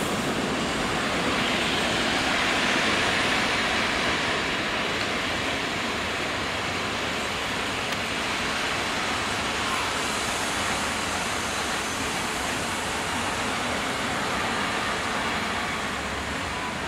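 Freight train of open wagons hauled by an ET22 electric locomotive rolling along the tracks: a steady rumble and rattle of wheels and wagons, a little louder in the first few seconds.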